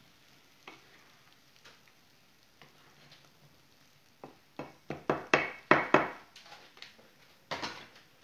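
Wooden spatulas knocking and scraping against a metal pan as sliced zucchini is tossed: faint scattered clicks at first, then a quick run of loud knocks about halfway through and a few more near the end.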